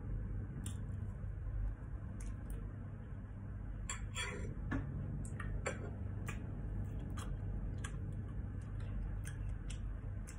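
Short light clicks of a metal fork against a ceramic plate as watermelon chunks are speared, a few louder ones about four seconds in, over a low steady hum.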